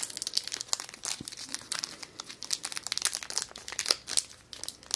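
Foil wrapper of a Pokémon Sword & Shield booster pack crinkling and crackling in the hands as it is worked at and pulled to tear it open, a dense run of quick, irregular crackles.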